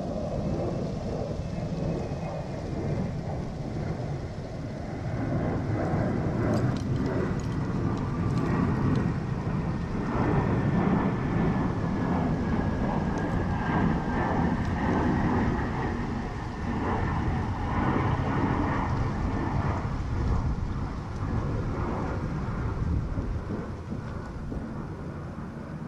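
Wind buffeting the microphone on an open shoreline, a steady low rumble that swells through the middle. A faint whine falls slowly in pitch behind it.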